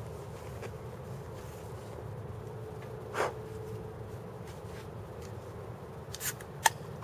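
Steady low rumble of distant freeway traffic under the hiss of the camera's auto-gain, broken by close handling sounds: a short hiss about three seconds in, then a brief crackle and a sharp click near the end.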